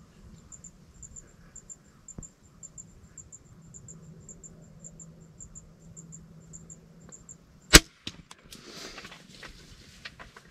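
Insects chirping in a steady rhythm, then a single sharp crack of an RX Cobra Adder repeating crossbow firing about three-quarters of the way in. After it come rustling and crackling as the hit deer goes crashing off through the brush.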